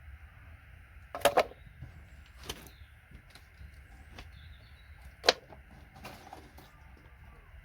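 Sharp clacks of plastic computer cable connectors being handled and dropped onto a pile: a double clack about a second in, a smaller one a second later, and a sharp single one past halfway, over faint steady background noise.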